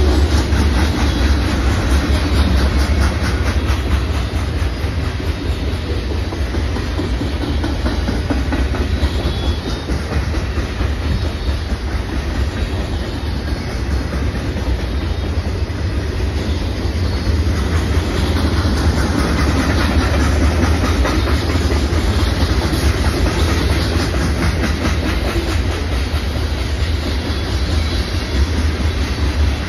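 Freight cars of a passing freight train rolling by close: centerbeam flatcars loaded with lumber, then covered hoppers. A steady heavy rumble with a dense run of wheel clicks over the rail joints.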